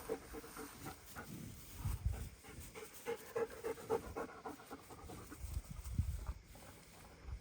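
German shepherd dog panting rapidly, with a couple of low thumps about two and six seconds in.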